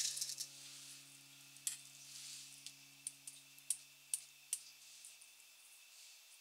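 Stainless mesh strainer being tapped and shaken over a stainless steel bowl, giving a short run of light clicks and taps as drained glass noodles and wood ear mushroom are knocked out of it. A brief fading hiss opens it.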